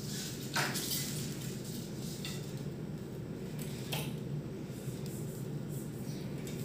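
Steady low machine hum with a few light clinks from small hard objects being handled on the COF bonding machine's stage. The sharpest clink comes just after the start, another about four seconds in.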